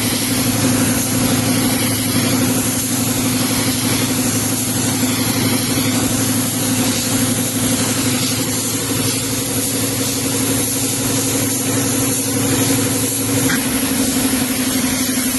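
Gravity-feed spray gun hissing as it sprays clear top coat onto a car bumper, over a steady mechanical hum.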